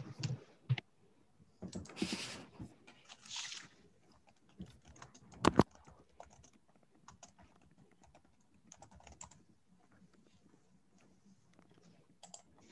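Computer keyboard typing and clicking, picked up by the presenter's computer microphone: scattered irregular keystrokes, a couple of short rustling bursts early on, and one sharper, louder click about halfway through.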